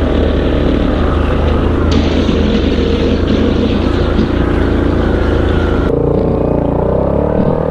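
ATV engine running steadily under load on a trail climb. About six seconds in the sound changes abruptly to a duller, lower steady drone.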